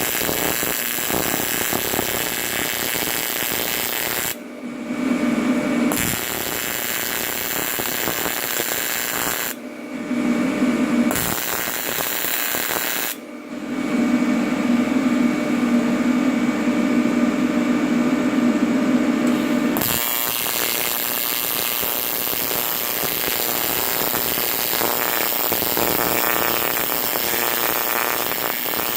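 AC TIG welding arc buzzing steadily while aluminum is built up on a worn fixture. Three times the high hiss drops out for a second or several and a lower hum takes over.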